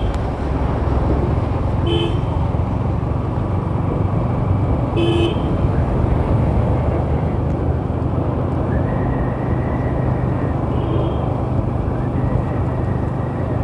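Wind rushing over the microphone and engine noise of a moving motorcycle in traffic, with short vehicle horn toots about two seconds in and again about five seconds in, and a fainter one near eleven seconds.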